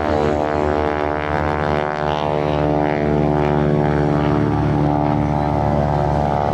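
Stearman biplane's radial engine and propeller running loud as it flies past, the pitch dropping over the first two seconds and then holding steady as it climbs away.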